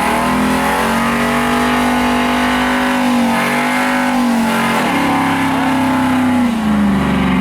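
Chevrolet Tahoe's V8 engine held at high revs during a burnout. The pitch dips and recovers about five seconds in, then falls away near the end.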